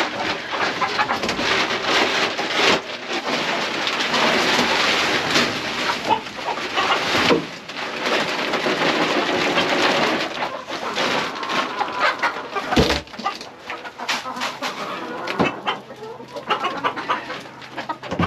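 Chicken feed poured from a paper sack into a plastic barrel feeder: a long rushing hiss of pellets lasting several seconds, then a couple of dull knocks. Hens cluck throughout.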